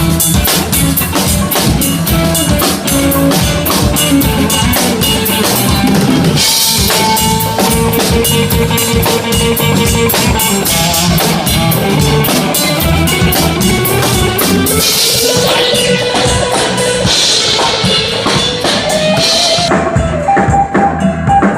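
Live blues band playing: a drum kit keeps a steady beat under bass, while a lead instrument plays long, held notes that bend in pitch.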